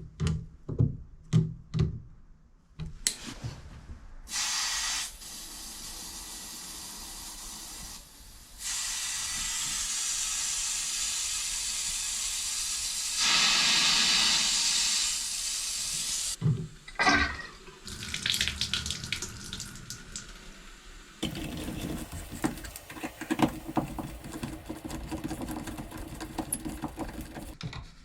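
Water running from an opened shower valve in long spells, loudest for a couple of seconds about halfway through, with clicks and knocks of parts being handled between the spells.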